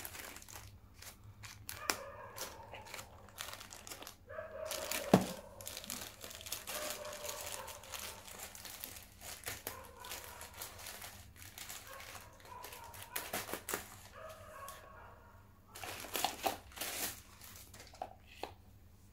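Packaging being handled and opened by hand, crinkling and tearing in irregular crackles, with one sharp snap about five seconds in.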